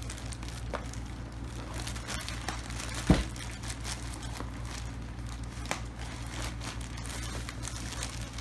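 Packaging crinkling and rustling as a keyboard is unboxed, with one louder knock about three seconds in, over a steady low hum.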